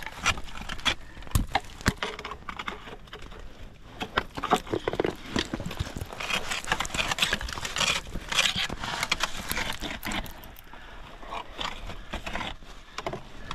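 Irregular clinking, knocking and scraping of a climber's metal gear on rock: carabiners and hardware jangling as the climber moves up the route.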